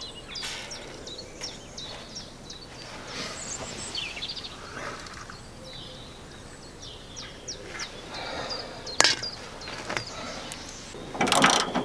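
Small birds chirping and singing, with light knocks of work on a vehicle's steel bumper, a sharp click about nine seconds in, and a short loud burst of noise near the end.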